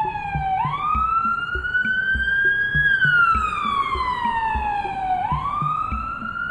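Wailing siren, its pitch slowly rising and falling with each sweep a couple of seconds long, over a steady low thumping about twice a second.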